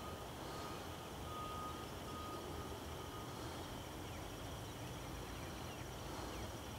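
Faint outdoor ambience: a steady, high-pitched insect trill over a low background rumble.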